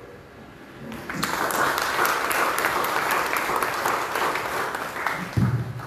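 An audience applauding, starting about a second in and fading near the end, with a short low thump just before it stops.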